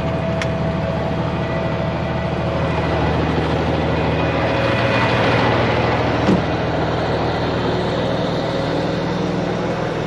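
Semi truck's diesel engine running steadily at raised idle with the PTO engaged, driving the hydraulic pump for the lowboy trailer. A single sharp clunk about six seconds in.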